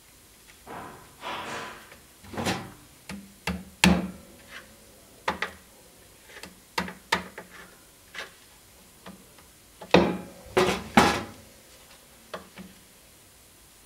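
Small metal hammer tapping a pin or punch held on a block: irregular sharp taps, each with a short metallic ring, loudest near 4 s and between 10 and 11 s, mixed with a few longer handling noises.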